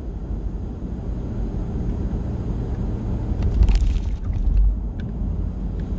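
Road noise inside a moving car's cabin: a steady low rumble of the car running on asphalt, with a brief thump about three and a half seconds in.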